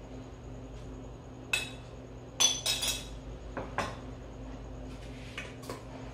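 Metal spoon and ceramic dishes clinking and knocking: several sharp clinks, the loudest group about two and a half to three seconds in, each with a short ring.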